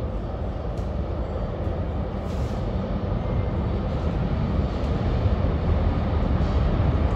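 Steady low rumble of a New York City subway train running through the station, slowly growing louder.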